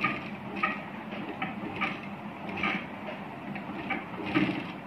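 Sewing machine stitching two layers of fabric along the edge of a stand-collar band, running with a fast, even clatter and a few louder knocks.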